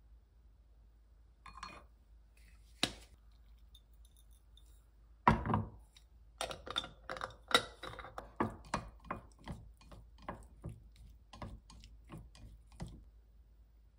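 Kitchen handling sounds at a counter: a sharp click, then a loud thump about five seconds in as a bottle is set down on the wooden cutting board. This is followed by a run of light knocks and clicks, about three a second, as wooden chopsticks stir seasoned strips in a ceramic bowl.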